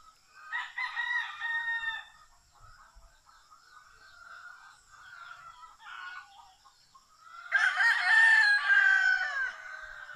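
Rooster crowing twice, once about half a second in and again, louder and longer, near the end, with fainter fowl calls in between over a steady high-pitched drone.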